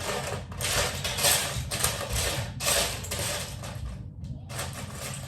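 Plastic Lego bricks being handled, a clattering, rustling noise as the pieces are pushed and worked against each other, with a brief pause about four seconds in.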